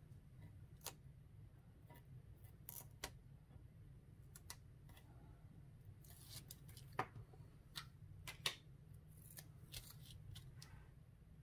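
Quiet crafting handling: scattered light clicks and short rustles of paper card and double-sided tape being peeled and pressed down, with two sharper clicks in the second half, over a low steady hum.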